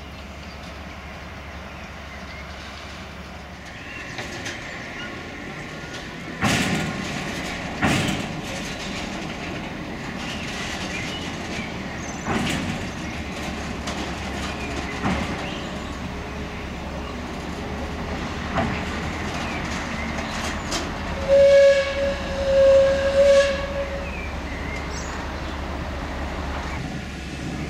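Small shunting locomotive running slowly at walking pace, pushing a fireless steam locomotive onto a turntable, its wheels knocking several times over the rail joints at the turntable's edge. A horn sounds in a few short blasts near the end.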